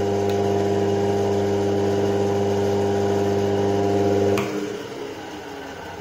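Washing-machine universal motor rig running as a self-excited generator with a steady electrical hum. About four and a half seconds in a click sounds, the hum cuts out and a much fainter running-down sound follows as the machine is shut off.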